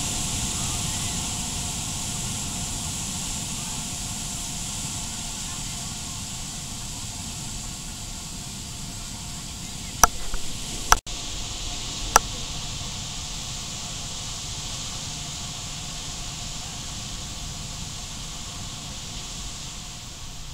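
Steady outdoor beach ambience: surf washing on the shore, with a high, even hiss over it. There are a few sharp clicks about halfway through.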